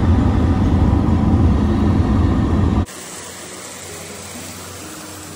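Jeep Wrangler driving, heard from inside the cabin: a loud, steady engine and road rumble. It cuts off abruptly about three seconds in, giving way to a much quieter steady rushing hiss.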